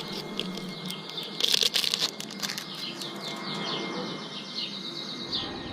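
Small birds chirping over and over, with scattered clicks and rustling of something being handled.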